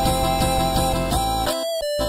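Background music: a song with sustained tones over a steady beat.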